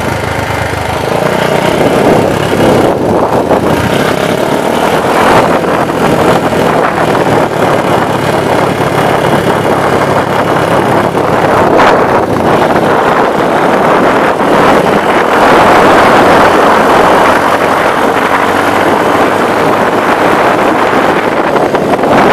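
Small trail motorcycle's engine running steadily while riding on a dirt road, getting louder about a second in.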